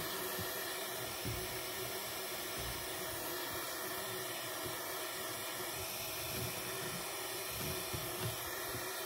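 A small handheld gas torch's flame hissing steadily as it heats a silver ring shank to flow solder into a void left by a casting defect.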